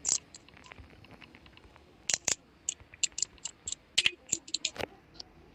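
Irregular run of short sharp clicks, several a second: typing on a keyboard.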